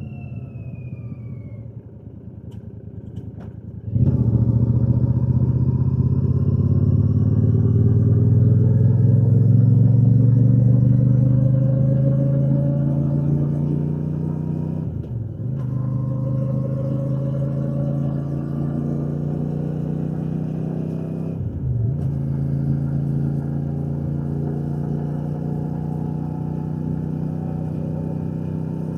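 Royal Enfield Shotgun 650's parallel-twin engine and exhaust, heard from the rider's position. It coasts off the throttle with falling pitch, then about four seconds in the throttle opens sharply and the engine pulls, rising in pitch. It shifts up twice, near the middle and again about three quarters of the way through, with a brief dip at each shift before the pitch climbs again.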